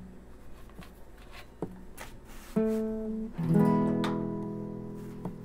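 Acoustic guitar music: a plucked note about two and a half seconds in, then a strummed chord about a second later that rings out and slowly fades.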